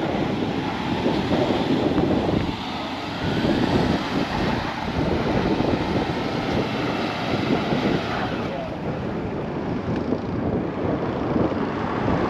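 A Chevrolet Silverado pickup and a Jeep SUV running hard as the pickup tows the Jeep out of deep snow on a strap, the Jeep's wheels spinning and throwing snow. Wind buffets the microphone throughout.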